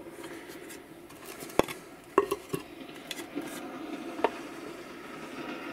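Light clicks and knocks of a steel-and-wood bending jig being handled and moved, half a dozen separate small impacts, over a steady low background hum.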